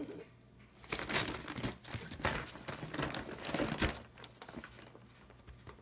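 Paper bag crinkling and rustling as a kitten scrambles around inside it, in irregular crackly bursts that start about a second in and die down after about four seconds.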